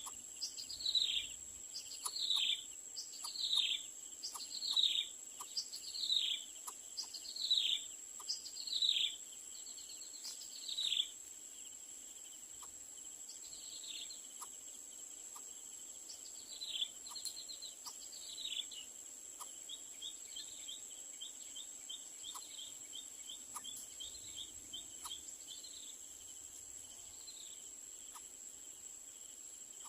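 A bird calling over and over with a short downward-sliding note about once a second. The calls thin out about a third of the way in, and later give way to a run of fast stuttering chips. A steady high insect drone runs underneath.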